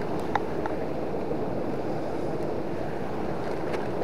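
Steady rush of a river running high with floodwater, with one faint click about half a second in.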